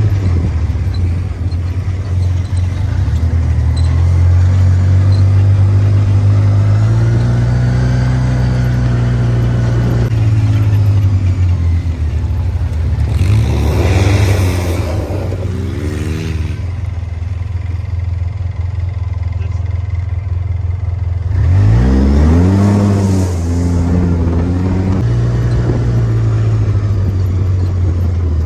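A motor vehicle's engine running under load, its drone shifting in pitch, with two rising-and-falling revs partway through and near the end.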